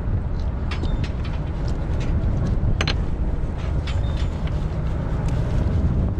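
Steady low rumble, with scattered light clicks and scrapes of knives working on halibut against the skiff's aluminum, and a short squeak about three seconds in.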